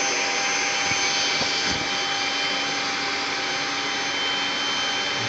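Vacuum cleaner running steadily: an even rushing hiss with a few constant high whining tones.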